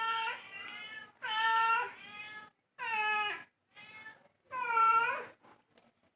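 Domestic cat meowing over and over: four loud meows about a second and a half apart, with fainter calls between them.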